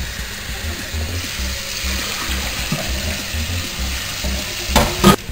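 Cold tap water running into a saucepan of hard-boiled eggs and the stainless steel sink, a steady splashing rush. Two sharp knocks near the end.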